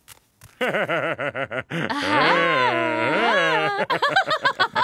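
A cartoon character's voice vocalising without words. It starts with a quick, regular warble like laughter, moves into a long held note that slides down and back up, and ends with another quick warbling run.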